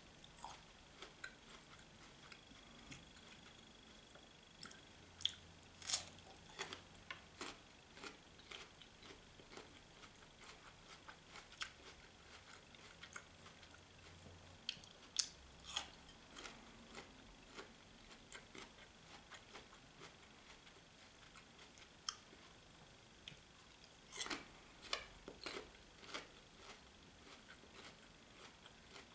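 A person eating: quiet, irregular chewing and mouth clicks, with a few sharper clicks now and then.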